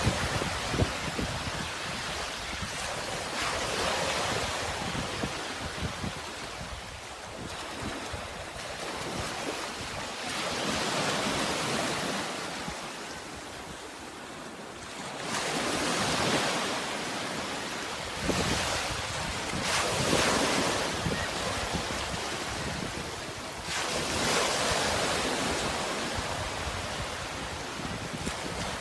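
Sea waves breaking and washing up a shore, each surge swelling and fading over a few seconds, with wind blowing on the microphone.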